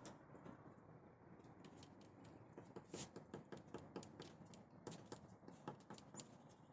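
Faint, irregular tapping: many small quick knocks in an uneven patter, growing a little denser and louder partway through.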